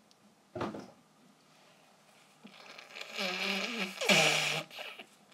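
Water being poured into a container of white glue while making slime: a hissing, splashing pour with a shifting tone, lasting about two seconds from about three seconds in. A short sound comes before it, about half a second in.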